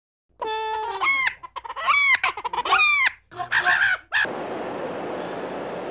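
A rooster crowing: a held note, then several short calls that arch up and fall in pitch. About four seconds in it cuts to a steady rushing noise.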